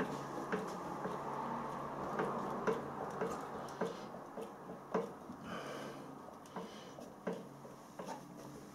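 Hand screwdriver and screws at work as a toilet pan is screwed down to the floor: irregular light clicks and knocks, about one every half second to second.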